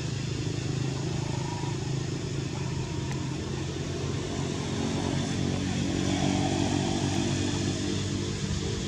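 A small engine running steadily, its pitch shifting up a little around the middle.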